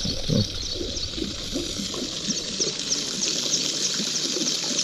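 Water gushing from an outlet into a pond, splashing and gurgling steadily, with a run of short, high chirps over it, about three or four a second.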